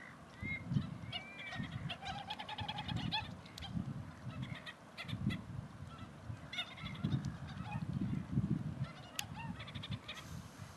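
Domestic greylag-type goose giving repeated short honks.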